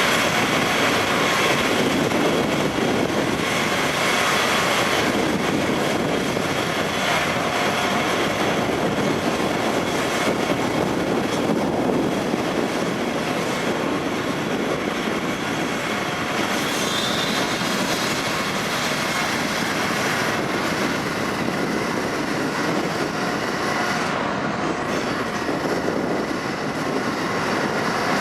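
Ferry Reimei Maru's engines and propellers running steadily while it manoeuvres away from the quay and turns to leave port, heard as a loud, even mechanical noise with a few faint steady tones.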